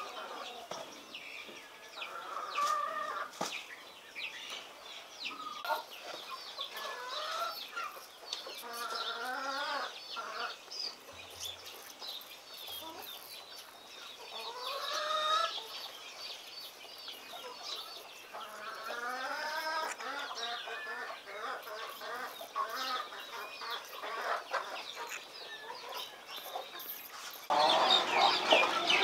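Chickens clucking in repeated short calls, with small birds chirping in the background. About a second and a half before the end, the background suddenly turns louder and busier.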